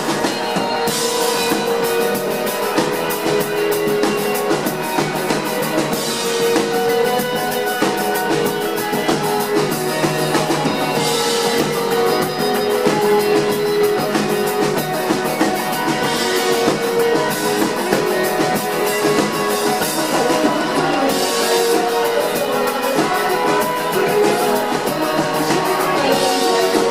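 Live band playing a rock song on drum kit, electric guitar and keyboard, with the drums beating steadily.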